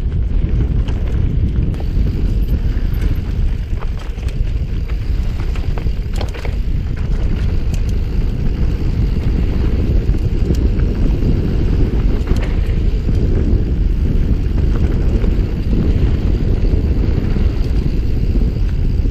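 Wind buffeting a bike-mounted action camera's microphone as a mountain bike rolls down a dirt singletrack, a steady low rumble mixed with tyre noise. Occasional small clicks and rattles from the bike come through.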